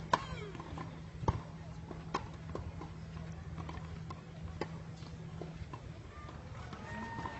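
Tennis ball being struck by rackets and bouncing on a hard court during a practice rally: a series of sharp pops at irregular intervals, the loudest just after the start and about a second later.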